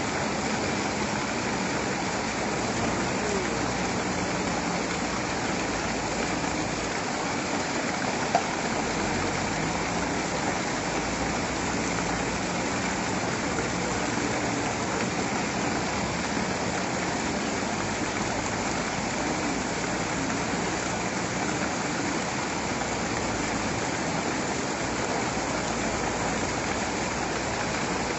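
Steady rushing of the flooded Trishuli River, an even, unbroken roar of fast water, with one brief click about eight seconds in.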